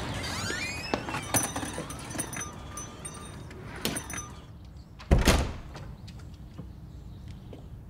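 A shop's glazed door opening with a small bell on it jingling and ringing on, then the door shutting with a single heavy thud about five seconds in.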